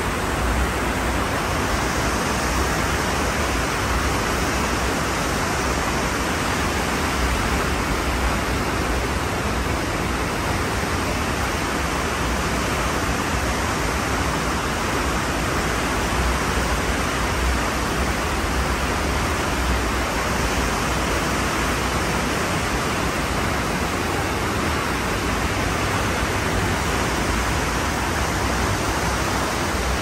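Ocean surf as a steady, even rush of noise, with no separate wave breaks standing out.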